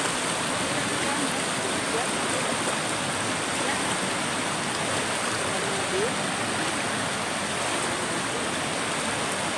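Shallow river rushing steadily over rocks and stones.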